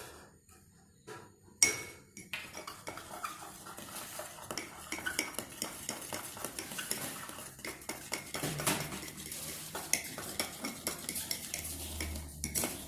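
Eggs being beaten in a bowl, a utensil clinking quickly and unevenly against the bowl, mixing in purple food colouring. A sharp knock comes about a second and a half in, before the beating starts.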